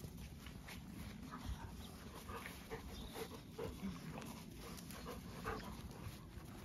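Dogs playing with puppies on grass, heard faintly: panting and a scatter of short soft scuffling sounds.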